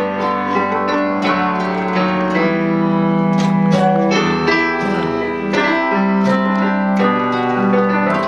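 Live piano and acoustic guitar playing a song together, with sustained piano chords and strummed guitar.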